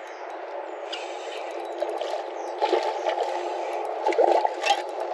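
Water splashing and gurgling as a hooked redfish is reeled up to the kayak, growing louder, with sharper splashes about halfway through and again near the end.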